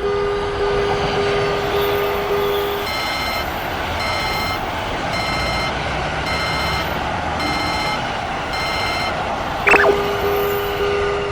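Japanese railroad level-crossing alarms: a bell rings in rapid, even strokes, switching about three seconds in to a higher electronic beep that sounds on and off about once a second. Near the end a short loud blast cuts in and the lower bell resumes, all over a steady background rumble.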